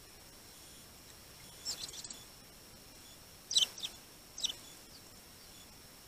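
Small songbirds chirping: three short bursts of high, quickly falling chirps, the loudest about three and a half seconds in.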